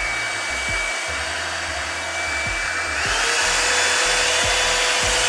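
EZ Detangler blow dryer running: a steady, loud rush of air with a high motor whine that steps up to a higher pitch about three seconds in. It is kind of loud and pretty powerful.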